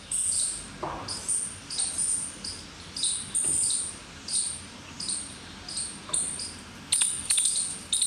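Birds chirping in a park recording: a short, high chirp repeated about twice a second, each note dropping in pitch, over faint outdoor background hiss.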